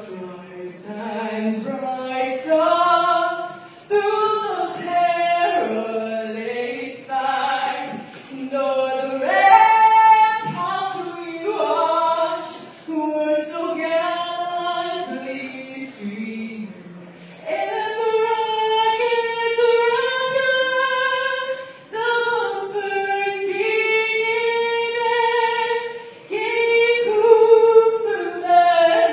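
A choir singing unaccompanied, in slow phrases with long held notes.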